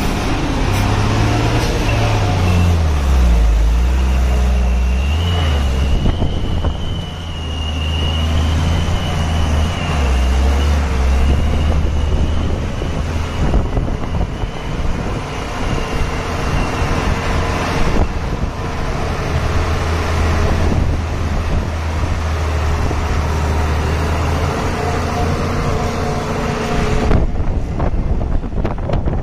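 Truck engine running under load on a mountain climb, its low hum stepping up and down in pitch as the revs change. A thin high whine runs through several seconds in the first half.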